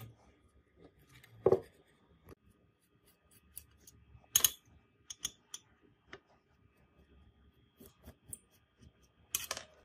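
Screwdriver working on the screws of a driver's mounting ring on a 1975 Sony speaker's baffle plate, giving scattered clicks and scrapes of metal on the screws. Louder knocks come as the plate is handled, about one and a half, four and a half and nine and a half seconds in.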